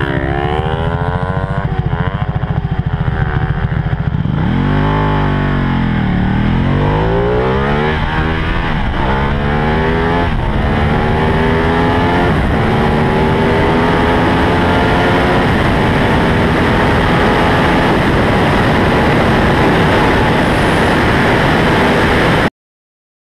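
Ducati 1199 Panigale R's V-twin with a Termignoni full race exhaust accelerating hard, its revs climbing and dropping back with each upshift. Later it pulls in a long steady climb at high speed under heavy wind rush, then cuts off abruptly near the end.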